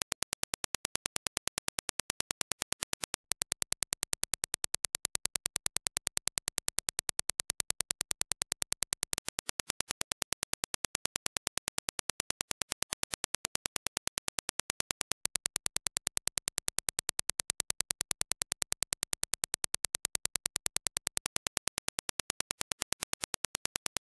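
Reference Dirac impulse test signal: a rapid, even train of sharp electronic clicks, several a second, with the level stepping slightly up and down every few seconds.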